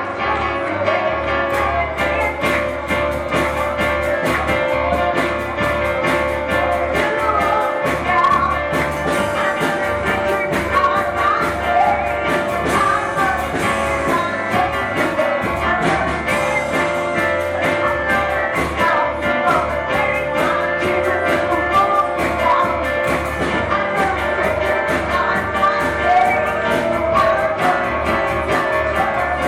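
Live church band music with a steady beat and held keyboard chords.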